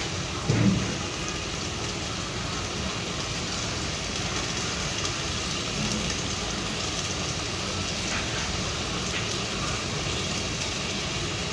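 Steady hiss of curry gravy simmering in an aluminium pan over a gas burner as fried climbing perch are slid into it. A soft low bump comes about half a second in.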